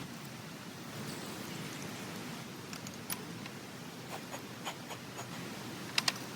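Scattered light clicks and taps, with two sharp clicks close together near the end, over a steady low hum.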